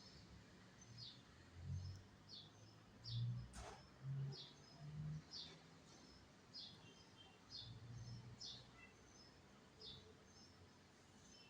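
Faint bird chirps, short and high, repeating about once a second, with one falling call about three and a half seconds in. A few soft low thumps are heard through the first eight seconds.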